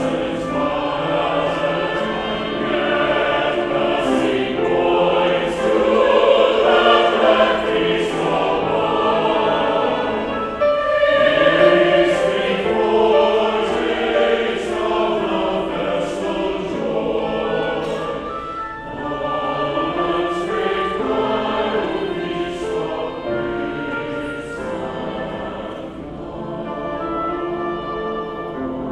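Church chancel choir singing, full-voiced, easing softer in the last few seconds.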